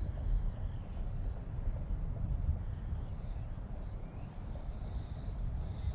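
A low, uneven rumble, with a small bird's short high chirps repeating about every second or two.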